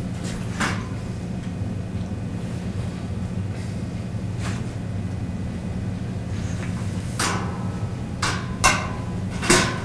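Dry-erase marker scratching and tapping on a whiteboard in a few short strokes, most of them in the last three seconds, over a steady low background hum.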